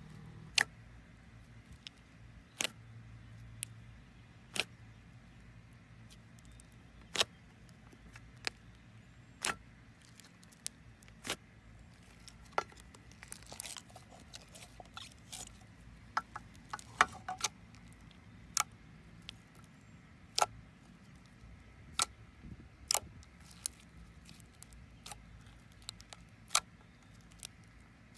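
Thick slime being pressed, squeezed and poked by hand, giving sharp, irregular pops and clicks of trapped air about once every second or two, with a quicker run of them about halfway through.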